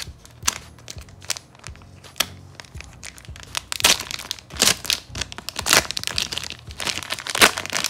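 Clear plastic wrapper of a hockey card pack being torn open and crinkled by hand, in sharp irregular crackles that grow louder from about four seconds in.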